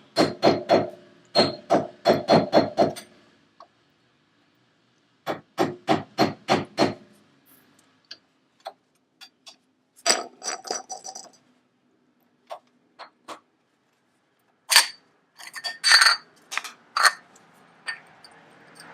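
Repeated sharp metal-on-metal taps in four quick runs of several strikes each, separated by short pauses: a tool being struck against the front wheel hub's dust cap to work it loose.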